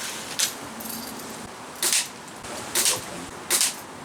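A low-powered air gun fired four times, each shot a short hissing puff, roughly a second apart.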